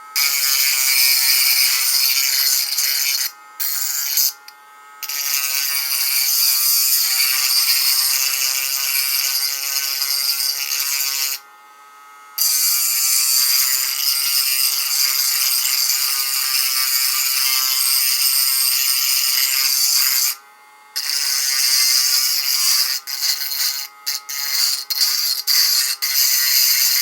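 High-speed rotary carving tool running with a high whine while grinding and smoothing the edges of a carved eggshell. It stops briefly several times and is switched on and off in quick succession near the end.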